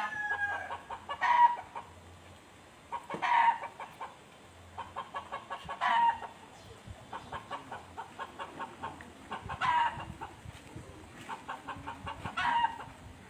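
Chickens clucking: runs of quick short clucks, broken every few seconds by a louder squawk, five times in all.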